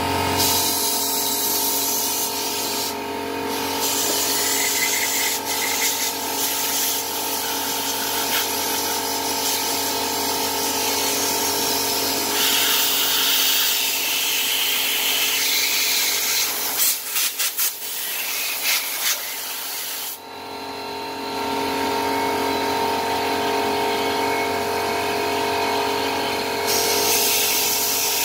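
Compressed air from a blowgun hissing through the pressure washer's water pump head, blowing out brake cleaner and loosened debris. An air compressor hums steadily underneath. About two-thirds of the way through the air comes in a few short puffs and stops briefly, then resumes.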